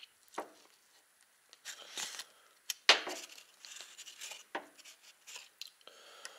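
A casserole being broken apart by hand and with a fork on crinkly baking paper over a metal tray: paper rustling and crinkling with scattered clicks of the fork, and one sharp click about three seconds in.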